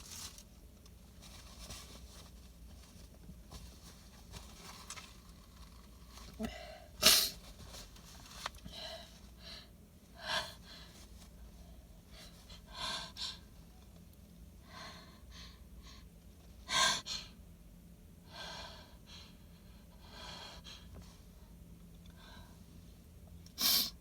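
A woman's wet, messy sneezes into cupped hands, set off by flower pollen. The three strongest come about seven, seventeen and twenty-four seconds in, with smaller sneezes and sharp breaths between.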